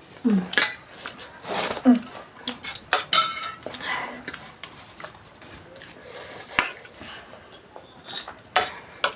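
Cutlery clinking and scraping on plates in quick, irregular clicks while noodles and eggs are eaten.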